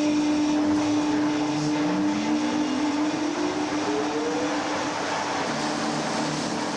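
Scenic Railway ride machinery starting from the control panel: the electric drive motor hums steadily, then whines up in pitch over about three seconds as it comes up to speed, over a loud, steady din of running machinery.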